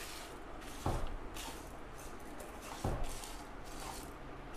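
A spatula stirring chana dal, dried red chillies and whole spices as they dry-roast in a pan on low heat: a low rustling scrape of the dry ingredients against the pan, with two louder strokes, one about a second in and one near three seconds.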